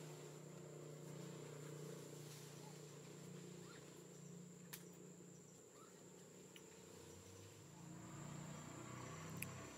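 Faint, steady, high-pitched insect trill over a low background hum, with a couple of faint clicks.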